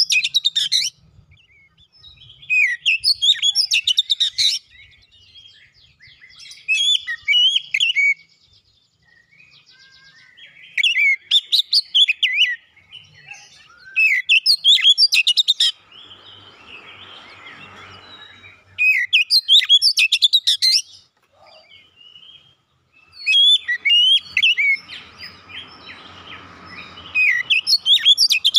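Oriental magpie-robin singing loudly in rich, varied phrases of fast whistled notes. The phrases last one to two seconds, with short pauses between them. A softer rustling noise comes twice, once midway and once near the end.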